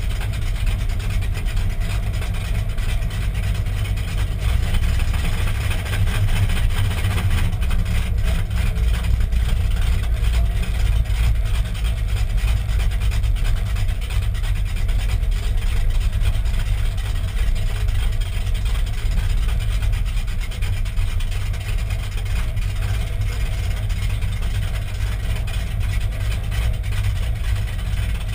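Dodge pickup's engine idling steadily, heard from inside the cab as the truck creeps forward at low speed.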